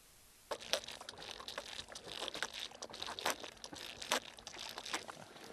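Frozen, dry snow crunching and crackling in irregular, quiet crunches, starting about half a second in.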